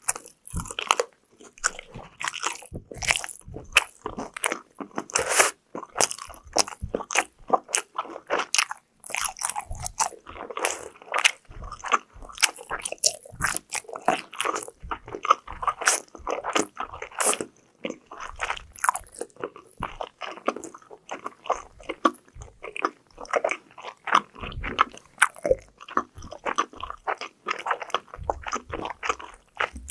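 Close-miked eating: crunchy bites and chewing of fried food, with dense irregular crackles and crunches between brief pauses.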